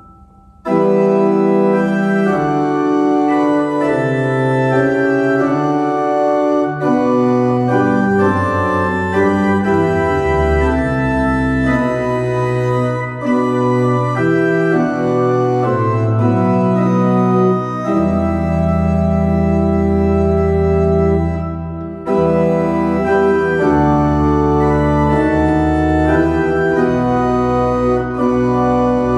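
Church pipe organ playing a hymn tune in held chords, one chord after another, starting about half a second in, with a brief break between phrases about three-quarters of the way through.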